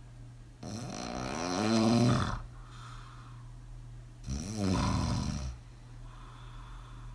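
A woman snoring hard on her back with her mouth open. There are two long, rasping snores, the first about two seconds long and the louder, the second shorter, with softer breaths between them.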